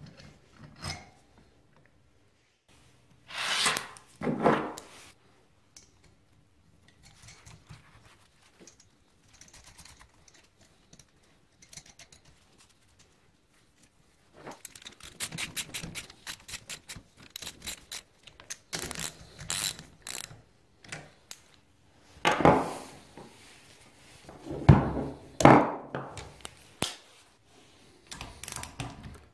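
Handling clinks and knocks of aluminium engine parts as a cover is seated on the cylinder-head studs of a Honda ATC 90 engine, with a quick run of rapid even clicking partway through, then more metal knocks as a wrench goes onto the cover nuts near the end.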